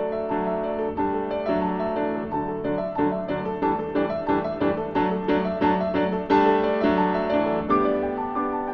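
Background piano music: a steady run of notes in a gentle melody.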